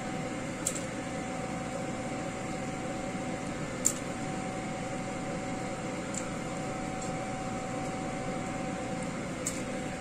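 Steady hum of a kitchen fan with a constant tone, with a few light clicks as chicken pieces are dropped into a stainless pot of boiling soup. The sharpest click comes about four seconds in.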